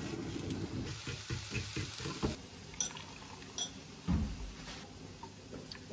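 Mushrooms sizzling in a frying pan on an induction hob, with the pan knocking and scraping in short clicks. About four seconds in, water is poured from an electric kettle into a glass mug.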